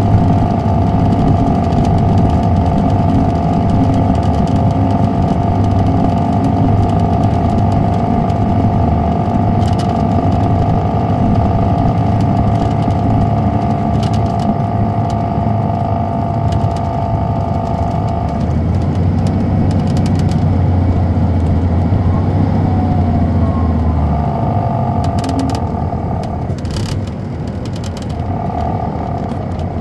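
Inside the cabin of a 2007 MCI D4500CL coach under way, its Caterpillar C13 diesel engine running with a steady low drone and a high steady whine. About two-thirds of the way through the whine gives way to gliding tones, and a few seconds later the low engine note drops. A few sharp clicks or rattles come through.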